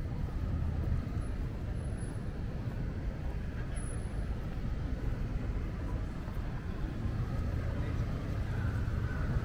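Street ambience in a busy city: a steady low rumble of road traffic, with no single event standing out.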